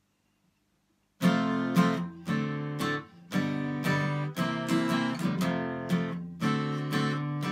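Acoustic guitar strumming the chord intro of a blues song, starting about a second in.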